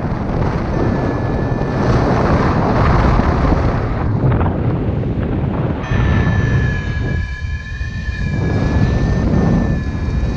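Loud, steady wind buffeting the microphone of a paraglider pilot's camera in flight. A steady high electronic tone joins about six seconds in and holds for about three seconds.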